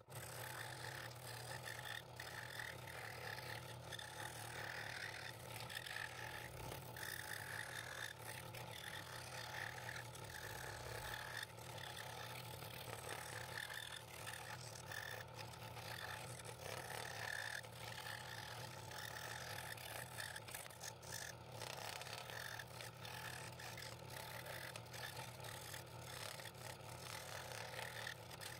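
Scroll saw running steadily, its fine blade cutting through a double-stacked wooden blank.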